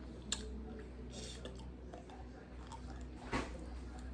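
Close-miked chewing and mouth sounds of a person eating seafood, with a sharp click near the start and a louder wet smack a little past three seconds in.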